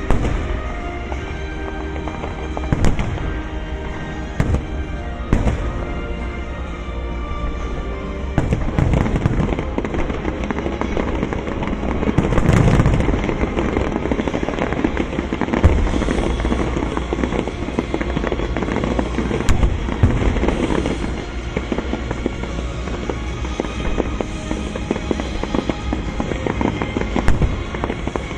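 Fireworks display: repeated sharp bangs and crackling bursts, with music playing underneath.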